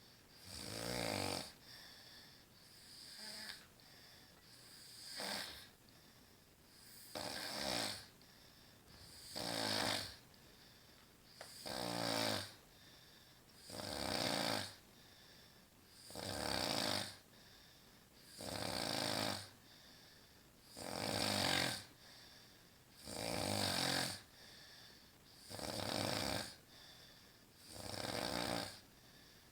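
A woman snoring in her sleep with a steady rhythm, one snore about every two seconds, about a dozen in all.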